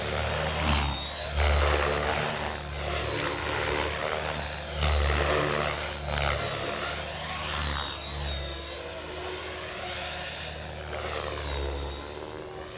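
Radio-controlled 3D aerobatic helicopter in flight: a steady high whine from the drive with the rotor blades whooshing and throbbing, swelling and fading as the model flips and passes. The rotor noise surges loudest about one and a half seconds in and again about five seconds in.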